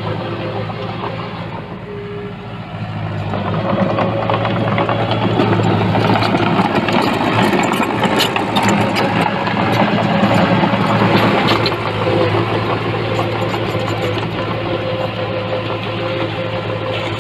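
Heavy-equipment diesel engine running steadily, working harder and louder from about three seconds in until about twelve seconds, with a few sharp knocks in the middle.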